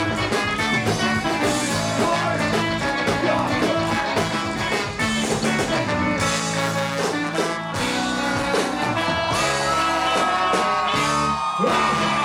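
Live band playing a rock song with singing; a long held high note comes in near the end.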